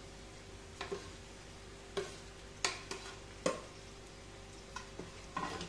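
A metal spatula tapping and scraping in a nonstick pan of mashed potato and onion, with about five sharp, irregularly spaced clicks, over a faint frying sizzle.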